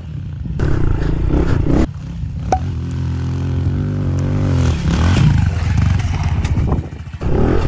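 Mini dirt bike engine revving hard under load as it climbs a steep hill. The engine note dips briefly about two seconds in and again near the end as the throttle eases.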